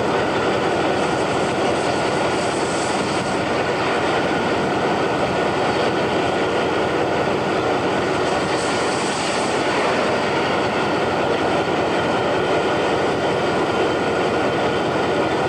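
Loud, steady rushing noise of strong wind from a tornado passing close by, with no breaks or changes in level.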